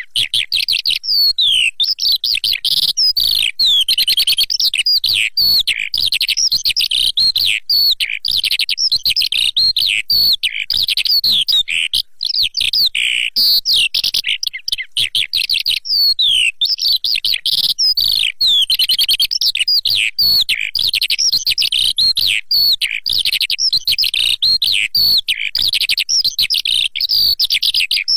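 Recorded lark song used as a hunting lure: a fast, unbroken stream of high chirps, trills and warbles, with only a brief lull about twelve seconds in.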